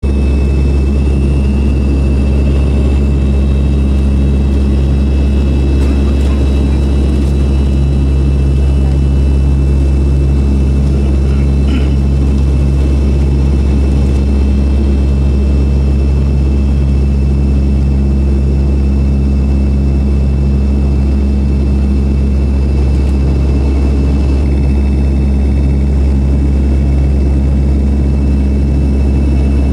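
Steady drone of an aircraft's engines in flight soon after takeoff: a deep, unbroken hum with a faint high whine above it.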